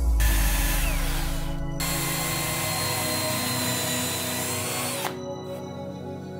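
Small high-speed rotary tool with a countersink bit whining as it cuts into a wooden board, stopping suddenly about five seconds in. Background music runs underneath.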